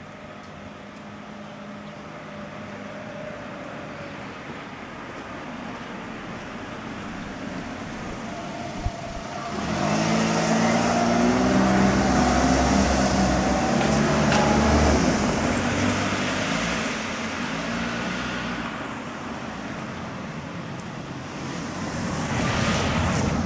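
A vehicle passing close by: a steady background hum swells about ten seconds in into a loud pass with a low rumble and shifting engine or motor tones, fades, then a second vehicle builds up near the end.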